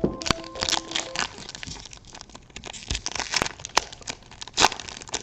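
Foil trading-card pack wrapper crinkling and tearing as a pack of 2012 Topps Chrome cards is opened, with many sharp crackles and clicks of handling.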